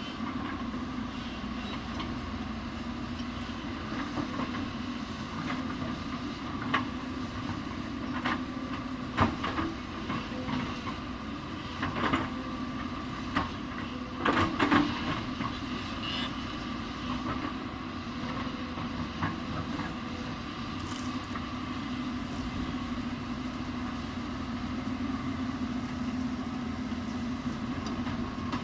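Hyundai 220 excavator's diesel engine running steadily under load. Scattered knocks and clatters of the machine at work sound over it, the loudest a cluster about halfway through.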